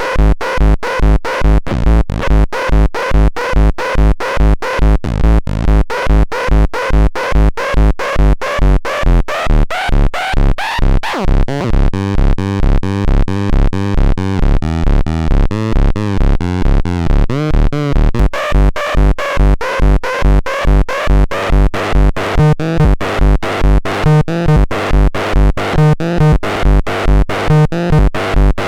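Techno track playing from a Techno Station TS1: a steady four-on-the-floor kick drum a little over twice a second under synth chords. The kick drops out for several seconds in the middle, leaving the synth, then comes back in.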